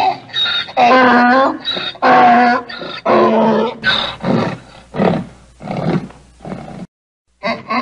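Donkey braying: loud drawn-out hee-haw notes, then a string of shorter rasping gasps about two a second that fade away. It cuts off abruptly, and a new bray starts near the end.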